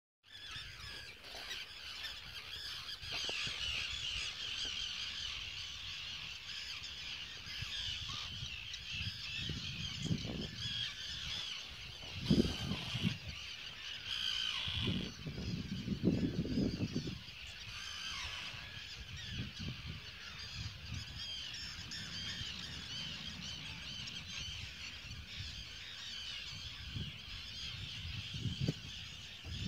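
A large flock of black terns calling continuously as they hunt midges on the wing, many short, harsh, high calls overlapping into a dense chorus. Low rumbles come and go underneath, loudest about twelve and sixteen seconds in.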